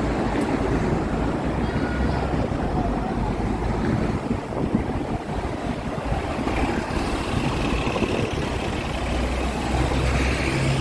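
Steady low rumble of city traffic and vehicle noise, with no single event standing out.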